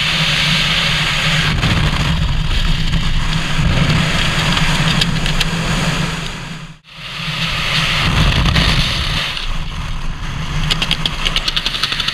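Loud, buffeting wind rushing over a helmet-mounted camera's microphone during a skydive and parachute opening. It drops out briefly about seven seconds in and builds back up, with a fast flutter near the end.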